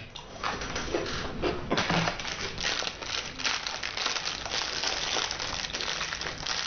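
A fortune cookie's plastic wrapper being handled and torn open: rapid crinkling and crackling, denser from about two seconds in.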